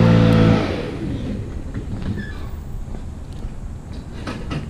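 An engine running steadily cuts off abruptly about half a second in, leaving a low outdoor rumble with a few faint clicks.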